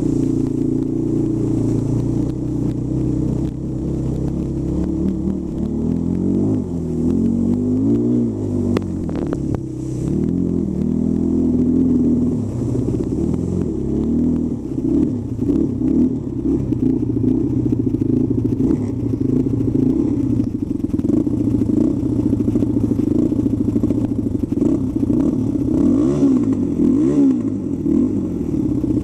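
Quad bike (ATV) engine running under load, its pitch rising and falling again and again as the throttle is opened and eased.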